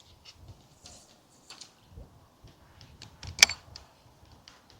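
Light, scattered clicks and taps of fishing tackle being handled, with one sharper click about three and a half seconds in.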